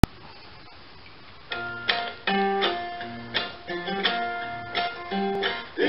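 Guitar notes plucked one after another, about two or three a second, starting about a second and a half in, each ringing and fading: an instrumental lead-in to a children's song.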